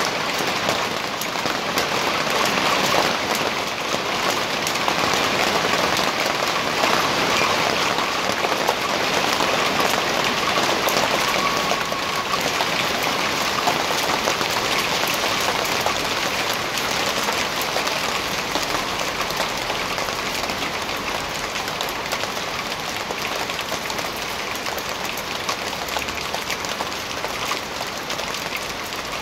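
Hailstones falling hard on the street and parked cars: a dense, steady clatter of countless small hits, easing slightly near the end.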